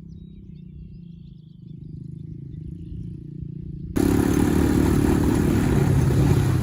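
Four-wheeler (ATV) engine running low and steady, with faint bird chirps above it. About four seconds in it cuts suddenly to a much louder engine under a loud rushing noise.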